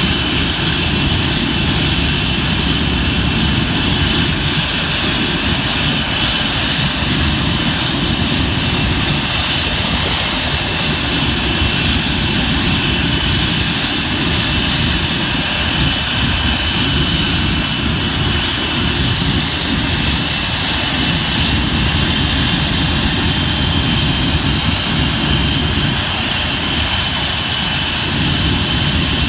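Jet engines of a Tornado GR4, its Turbo-Union RB199 turbofans, running steadily on the ground at a constant setting: a loud, unchanging high whine over a rough low rumble.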